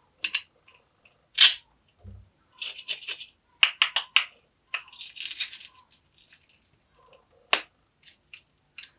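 Toy plastic tomato being pulled apart into its hook-and-loop halves and pressed back together: several short ripping sounds, with sharp plastic clicks and taps in between.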